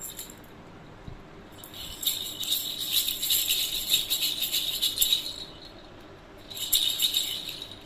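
A baby's rattle toy (jhunjhuna) shaken in two bouts, a long one of about four seconds and a shorter one near the end, giving a bright, high-pitched jingling rattle.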